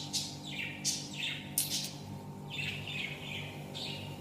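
Pet birds calling: a run of short, repeated calls, each sliding down in pitch, over a steady low hum.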